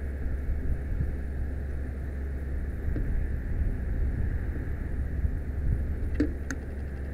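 Steady low rumble heard from the tip of a fire truck's raised aerial ladder as it rotates, a mix of wind on the microphone and the truck's engine running the ladder. Two brief high clicks about six seconds in.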